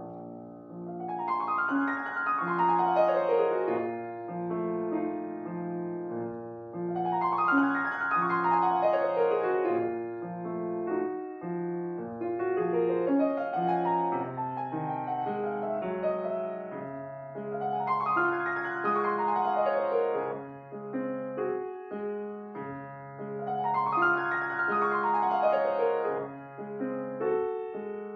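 Solo acoustic piano playing slow classical music: wide arpeggios sweep up and back down over held bass notes, one sweep every five or six seconds.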